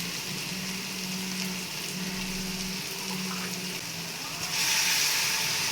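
Sizzling in a pan of onions and spices fried in ghee as coconut milk is poured in, with the hiss getting louder about four and a half seconds in.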